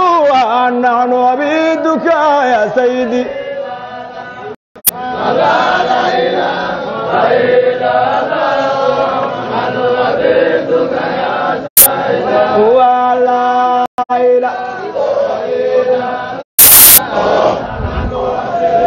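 Men's voices chanting a Sufi dhikr together, the pitch rising and falling. The chant is cut off abruptly several times by short dropouts, and there is a short loud burst near the end.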